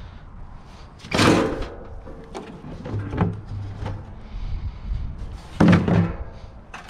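Scrap metal clanking as it is handled. A loud clunk with a brief metallic ring comes about a second in, lighter knocks follow, and a second loud clunk comes near the end.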